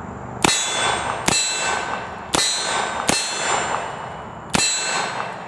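Five revolver shots roughly a second apart, each followed by the clang of the bullet striking a steel silhouette target. The plate rings on with a steady tone after every hit.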